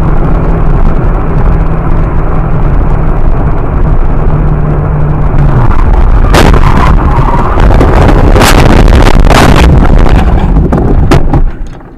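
Car interior drone of engine and tyres at speed, loud and distorted. About six seconds in comes a sharp crash as the car collides with a minibus. A burst of repeated crunching impacts and scraping follows for a few seconds, then the noise cuts off abruptly just before the end.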